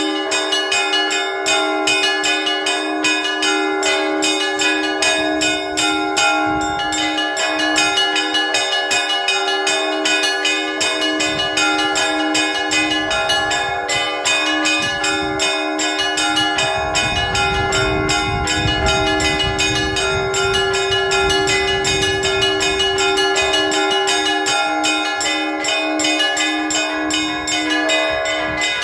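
Russian Orthodox church bells ringing on Trinity Sunday: small bells struck in a rapid, continuous pattern over the long, ringing hum of larger bells. A low rumble joins in the middle stretch.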